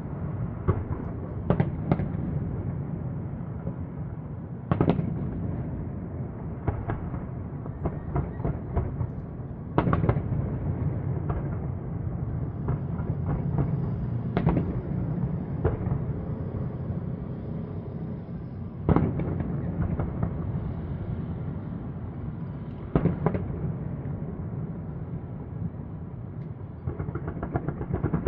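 Fireworks shells bursting over the city: sharp booms every few seconds over a continuous low rumble. A denser spell of bangs starts near the end.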